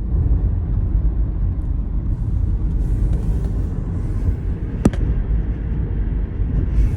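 Steady low rumble of a car driving, road and wind noise, with a single sharp click about five seconds in.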